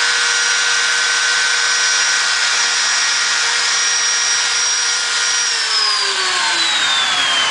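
High-speed spindle of a PCB CNC machine running with a steady whine over a hissing rush, then winding down from about two-thirds of the way in, its pitch falling steadily.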